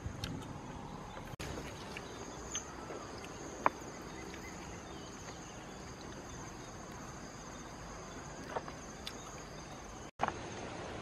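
Steady high-pitched insect chorus, with a few sharp light clicks, the clearest about a third of the way in.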